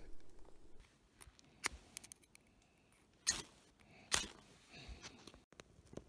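Survival-kit fire striker scraped over a cotton tinder bundle to throw sparks: one faint stroke, then two louder, short sharp scrapes about a second apart.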